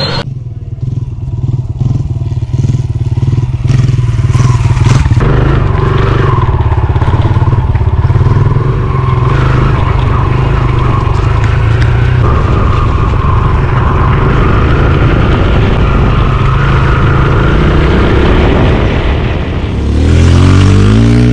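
Kawasaki KLX140L dirt bike's small single-cylinder four-stroke engine running steadily. It grows louder near the end as it comes close, its pitch sweeping.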